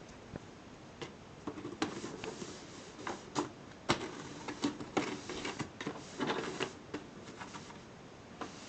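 Cat biting and chewing on a cardboard box: irregular crunching and crackling of cardboard in quick clusters, busiest from about one to seven seconds in.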